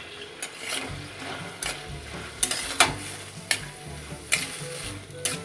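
Metal spatula stirring diced vegetables frying in oil in a stainless steel kadhai, the spatula scraping the pan and clinking against it about eight times.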